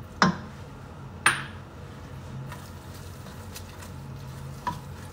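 Silicone spatula knocking sharply against a stainless steel pot twice, about a second apart, then stirring thick quinoa with a couple of lighter taps on the pot, over a steady low hum.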